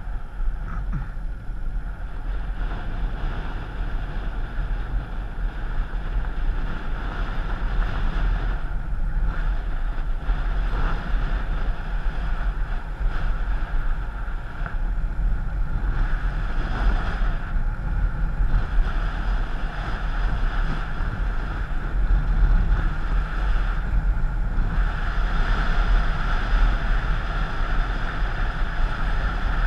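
Steady wind noise buffeting the microphone, with a deep rumble and a rushing hiss, growing slightly louder in the second half.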